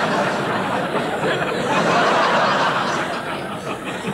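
Live audience laughing together, a crowd's laughter that eases off a little near the end.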